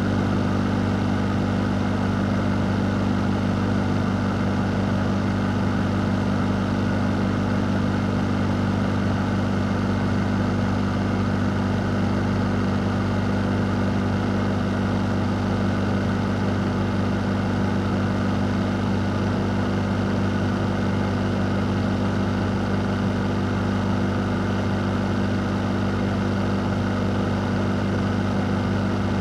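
Fan running steadily: a low, even hum under a constant rush of air.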